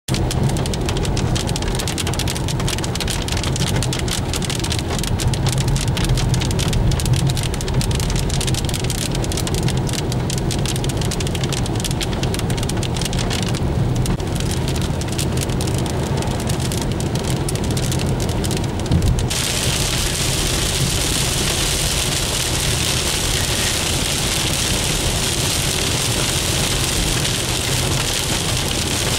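Rain falling steadily: a continuous hiss with the patter of drops on surfaces. About two-thirds of the way in, the sound turns to a fuller, brighter rush.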